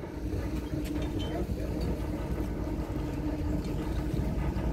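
Harbour ferry's engine running under way with a steady hum, and wind buffeting the microphone on the open deck.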